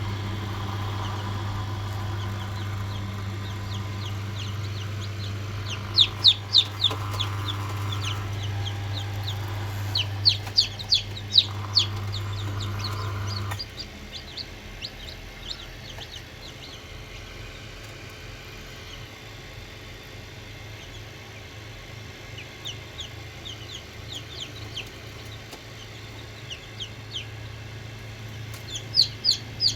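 Chickens in a poultry farm calling in quick bursts of short, high, sharp notes, with scattered single calls between the bursts. A steady low hum underneath cuts off suddenly about halfway through.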